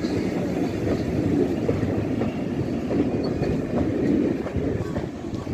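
Passenger coaches of a departing heritage train rolling past close by: a steady rumble of wheels on the rails, with faint clicks as they run over the rail joints.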